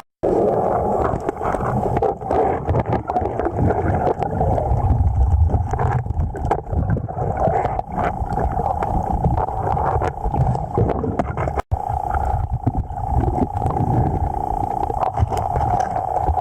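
Rushing river current heard close to the microphone, a steady rushing noise with a low rumble. The sound cuts out briefly twice, right at the start and a little after halfway.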